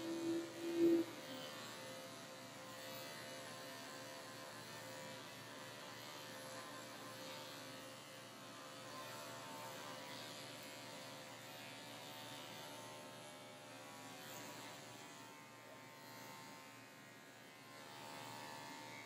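Electric dog grooming clippers running steadily with a faint, even hum and buzz as they shave a dog's coat. A brief, louder noise comes about a second in.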